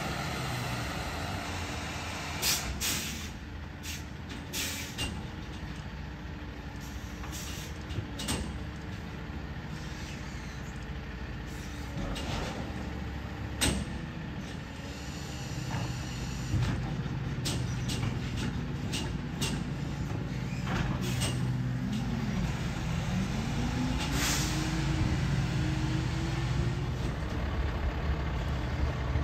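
Pac-Tech Bandit automated side-loader garbage truck at work: its diesel engine runs and revs up, with an air-brake hiss and a series of sharp clanks and bangs as the arm grabs, lifts and dumps the carts.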